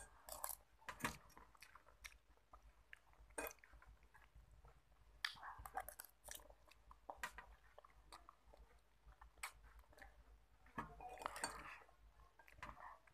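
A person chewing food, with irregular small crunches and wet mouth clicks.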